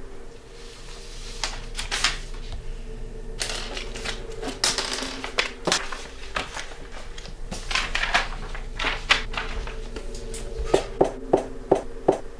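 Sheets of paper rustling and being handled, with scattered clicks and a quick run of five sharp clicks near the end, over a faint steady hum.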